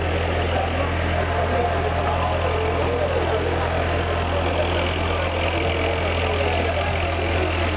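A standing train's diesel engine idling with a steady low hum, with a murmur of people's voices over it.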